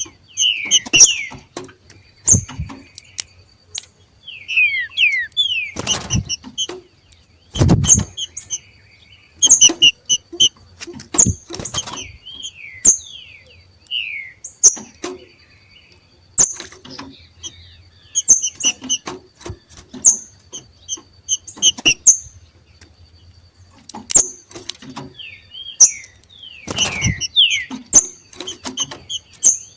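Two green-winged saltators (trinca-ferro) "macheando": a run of short, sharp chipping calls and quick falling squeaky notes, repeated over and over, the excited breeding-season calling that stirs other males to sing. A few thumps sound among the calls.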